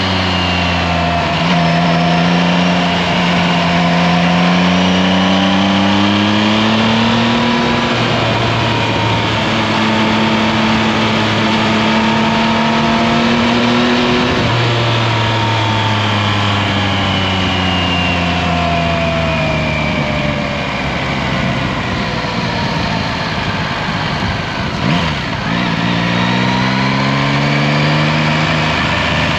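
Yamaha Tracer 9 GT's three-cylinder engine pulling through the gears while riding. The pitch climbs and breaks at each upshift, about seven and fourteen seconds in. It then falls away slowly as the bike slows, and climbs again near the end, over steady wind and tyre noise.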